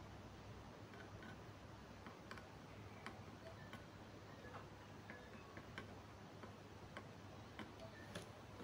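Faint, irregular light ticks and clicks of small tools working on a circuit board while diodes are being desoldered, over a low steady hum.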